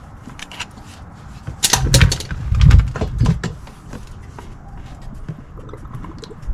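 Scattered clicks and knocks of hand work under a car while the spin-on oil filter is being taken off, with a louder run of knocks and low rumbling about two seconds in.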